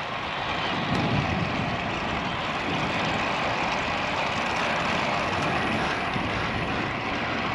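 Strong wind rushing over the camera microphone of a moving bicycle, a steady rushing noise.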